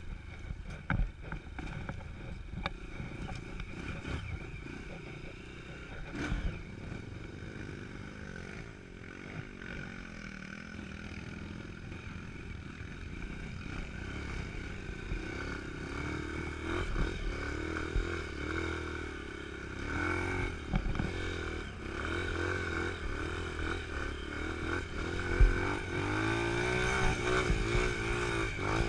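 Dirt bike engine running as the bike rides a rough trail, its pitch rising and falling with the throttle, and getting louder and revving harder in the second half. Occasional sharp knocks and rattles from the bike over the bumps.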